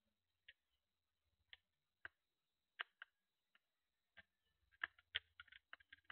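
Faint, irregular clicks and ticks, one to three a second, over near silence.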